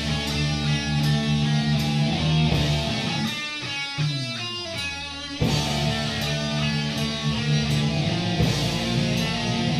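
Live heavy metal band playing: distorted electric guitars and bass ring out held chords. About midway the pitch slides downward, and around five and a half seconds the band crashes back in.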